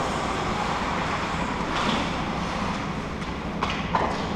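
Ice hockey rink ambience during play: a steady wash of noise from the rink and the game, with a couple of sharp knocks near the end.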